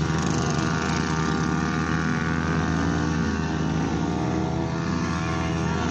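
Motorcycle engines running steadily close by, their pitch dipping and rising slightly a couple of times.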